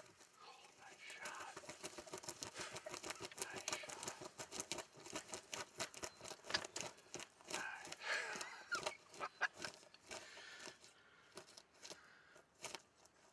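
A burst of rapid rustling, flapping and scuffling right after a bow shot, with a hushed voice mixed in. It thins out to a few scattered clicks near the end.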